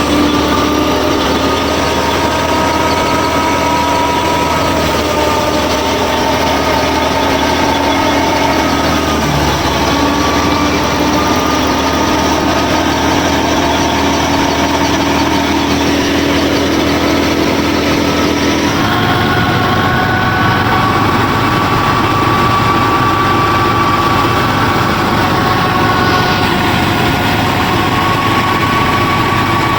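Small motors of a DIY miniature combine harvester running steadily, with a mix of droning tones. The pitch and tone change abruptly about two-thirds of the way through.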